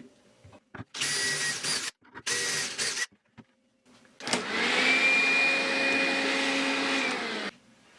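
A whirring machine with a steady whine, run in three bursts with sudden starts and stops: two of about a second each, then a longer one of about three seconds.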